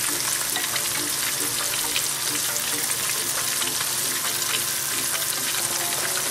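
Flour-dredged red-eared slider turtle pieces frying in hot grease in a deep pan: a steady, dense sizzle full of small crackling pops.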